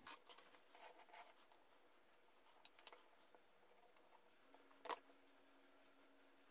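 Near silence with faint handling noises: light clicks and taps of small wooden toy parts being handled, and one sharper knock about five seconds in as the glue bottle is set down on the cutting mat.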